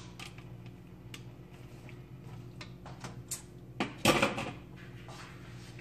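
Kitchen clatter of cookware and utensils: light clicks and knocks of a strainer and utensils against a wok and the counter, with one louder clatter about four seconds in. A steady low hum runs underneath.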